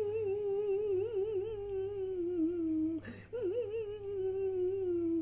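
A man's high, wavering, hum-like whine in two long drawn-out notes, each sagging lower in pitch at its end: mock crying.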